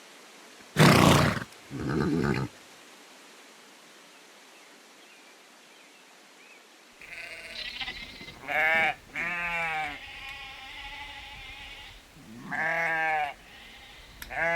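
Several bleats from sheep-type livestock, each a wavering, pitched call lasting about half a second to a second, over the second half. About a second in come two loud, harsh animal calls.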